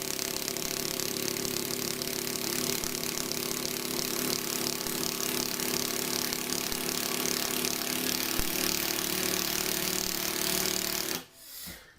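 RUYIKA cordless impact wrench with a screwdriver attachment running steadily at one speed as it drives a screw deep into wood, without slowing down, then stopping abruptly about 11 seconds in.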